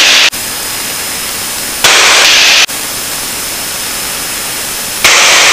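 Steady in-flight cabin noise of a Lancair Legacy heard through the headset intercom and radio feed, with a faint high electrical whine. Three times the intercom or radio squelch opens with no one talking, giving louder bursts of hiss: a brief one at the start, one lasting most of a second about two seconds in, and a short one near the end.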